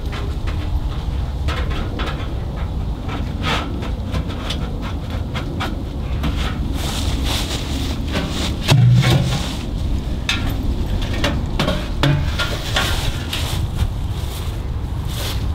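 Sheet-metal stovepipe sections being handled: scattered light clinks and knocks, with a duller thump about nine seconds in and a smaller one about three seconds later. A steady low wind rumble on the microphone runs underneath.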